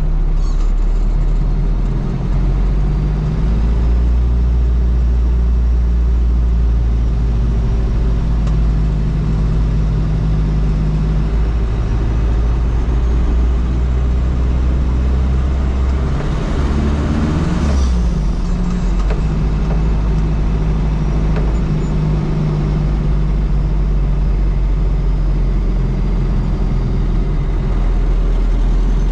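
Toyota Land Cruiser BJ73's 13B-T four-cylinder turbodiesel running steadily while driving, a low drone. About two-thirds of the way through comes a brief rush of noise as the low engine tone dips, then it settles back.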